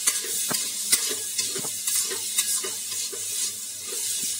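Metal spatula scraping and stirring soaked urad dal in a stainless steel kadhai, with the dal sizzling in oil; the scraping strokes come about twice a second.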